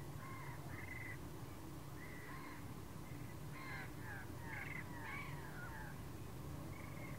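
Birds calling: short repeated calls, with a quick run of falling notes in the middle, over a faint low steady rumble.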